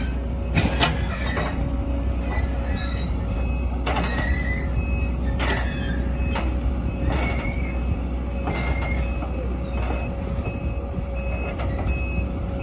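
Hydraulic excavator's diesel engine running steadily under load, with a short high beep repeating about twice a second and several sharp metallic clanks at irregular moments.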